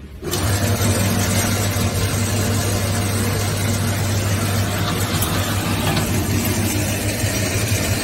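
V-C3 wire stripping machine running: its 2.2 kW electric motor and bladed rollers give a loud, steady hum that cuts in abruptly just after the start, as red insulated copper wire is fed through and stripped.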